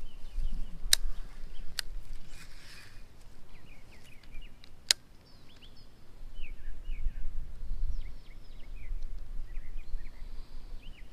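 Small birds chirping in short, scattered calls, over a low rumble, with a few sharp clicks.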